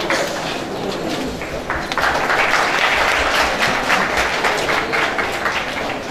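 Audience applauding: a steady patter of many hands clapping, growing fuller about two seconds in.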